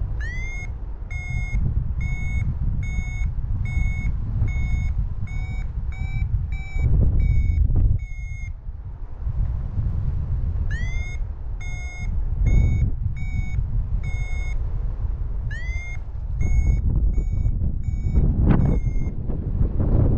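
Paragliding variometer sounding its climb tone: quick high beeps about two a second, in three runs with short pauses between, the pitch edging up within the first run. The beeping signals that the glider is climbing in a thermal. Wind rushes on the microphone underneath and swells a few times.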